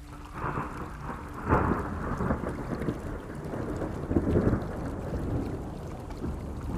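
Thunder rumbling over steady rain, swelling loudest about a second and a half in and again around four seconds in.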